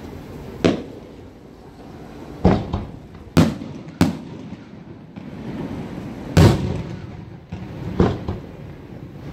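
Aerial firework shells bursting: six sharp bangs over about eight seconds, each trailing off in a rolling echo. The loudest comes about two-thirds of the way through.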